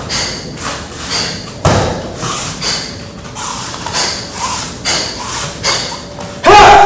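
Bare feet stamping and thudding on foam floor mats in a rhythmic run of about two steps a second, with a heavier thud about a second and a half in and the loudest, sudden impact near the end.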